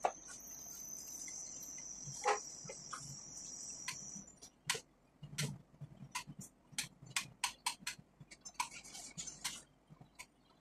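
Hair flat iron being clamped and worked through a section of hair: a steady high-pitched hiss for about the first four seconds, then a run of sharp, irregular clicks from the iron's plates and the comb.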